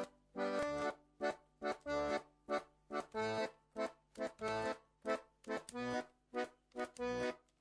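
Instrumental background music of short, separated notes played at a steady pace, about three a second.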